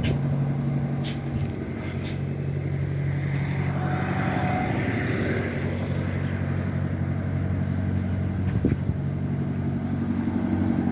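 Diesel truck engine idling steadily, with a few light clicks.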